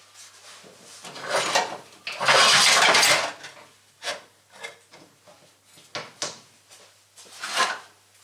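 Metal tools and parts clinking and knocking as they are handled, with a louder rattling clatter lasting about a second near the middle.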